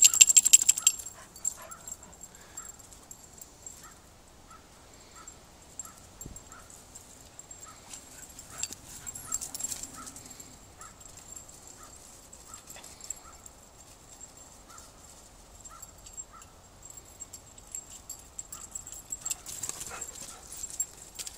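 Two dogs play-fighting: a loud burst of barking and scuffling at the start, then a long run of short high whimpers about twice a second, with more bursts of rough play near the middle and near the end.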